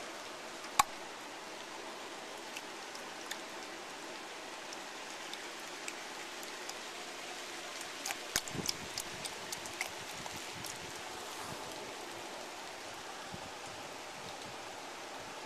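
Steady rain falling, a constant hiss with scattered sharp ticks, a cluster of them about eight to ten seconds in.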